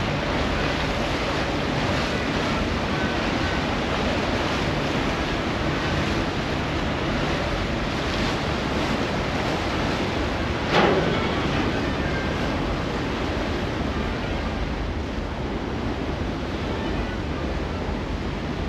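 Rushing water of a cruise ship's churning wake and wind over the open deck, with wind buffeting the microphone. A single short knock about halfway through.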